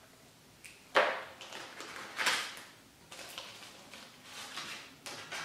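Paper banknotes and a clear plastic binder pouch rustling and crinkling as cash is pulled out and handled. A sharper crinkle comes about a second in, followed by several shorter rustles.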